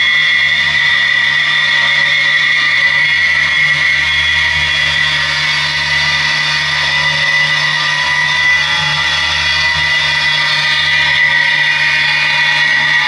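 Sustained ambient drone from an electric guitar run through effects pedals. High tones are held steady over a low hum, with only slight shifts as the pedal knobs are turned.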